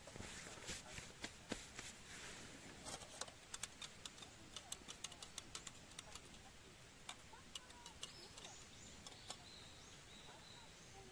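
Small wood fire crackling in a BushBox LF stove: a run of sharp pops and snaps, thickest about three to six seconds in and thinning out after. A few faint high chirps come in about eight to nine seconds in.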